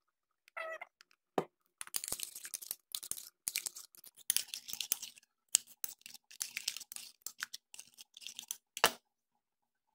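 A small glass jar with a metal lid being handled on a counter: a short squeak, a sharp knock, then several seconds of scratchy, clicking rubbing and handling noise, ending in another sharp knock.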